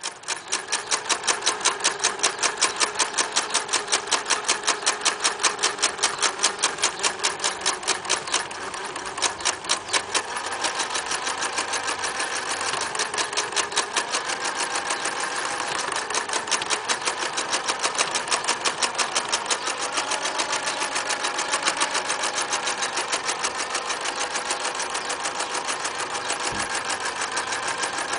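Singer Futura 1000 electric sewing machine running, its needle stitching in a fast, even rhythm of several strokes a second over the steady whine of the motor.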